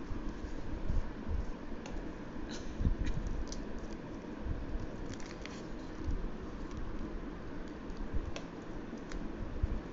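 Green origami paper being folded and pressed flat by fingers against a tabletop: scattered small crackles and taps of creasing paper, over a low steady background rumble.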